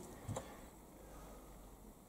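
Near silence: faint workshop room tone with a low steady hum, and one soft tap about a third of a second in as a small part is handled at the lathe's compound slide.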